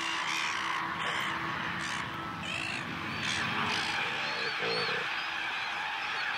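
Silver gulls calling in a breeding colony: many short, repeated calls overlapping over a steady background din.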